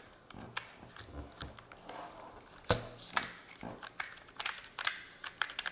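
Keys of an NPET gaming keyboard being pressed: scattered, irregular key clicks, two sharper ones a little past halfway and quicker presses near the end.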